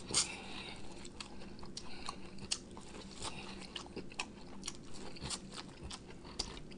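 Close-up biting and chewing kernels off a corn on the cob: an irregular run of small crisp crunches and wet clicks, the loudest just as it starts.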